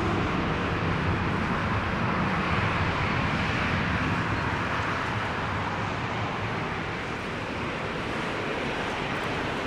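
Jet engines of a Boeing 737-900 (CFM56-7B turbofans) at takeoff power: a steady jet roar that swells to its loudest about three seconds in, then eases slightly.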